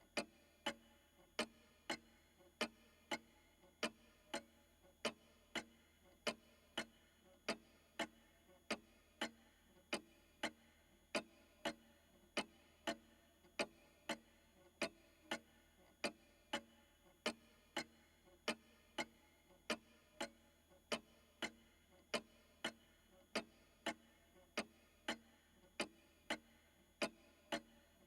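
Old pendulum clock ticking steadily, about two even ticks a second, in a tick-tock rhythm.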